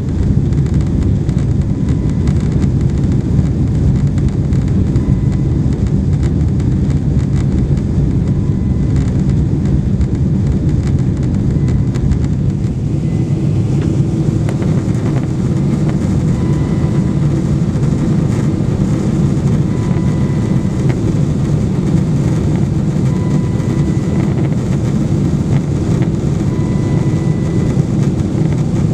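Steady loud rumble of engine and airflow noise inside a Boeing 777-200ER's passenger cabin in flight, heavy in the low end. Faint short beeps recur about every three seconds in the second half.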